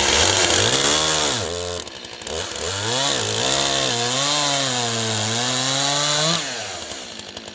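Chainsaw with a freshly sharpened chain running at high revs, its pitch sagging and recovering several times as it works. About six and a half seconds in, it drops back to a lower speed.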